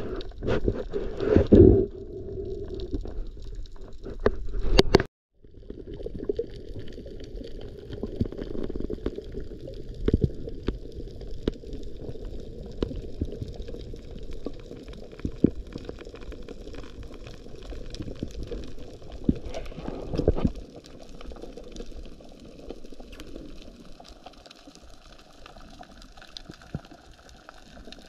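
Underwater sound picked up through a camera housing: water rushing and knocking at the start, a brief dropout about five seconds in, then a steady underwater wash with scattered clicks.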